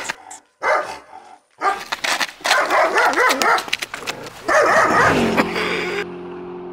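A dog barking in rapid, agitated volleys with scuffling clicks and knocks among them. About five seconds in the barking stops and a steady, held low tone takes over.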